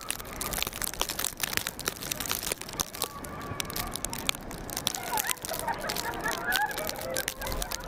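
Scraping and crunching on snow, dense with short sharp crackles, as sleds and feet move over the hill. From about five seconds in come faint, distant shouts and voices.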